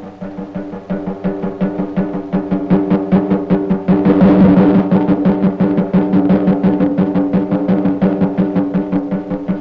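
Film music: a fast, even drumbeat, about seven strokes a second, over a low held tone. It swells to its loudest about four seconds in and stops abruptly near the end.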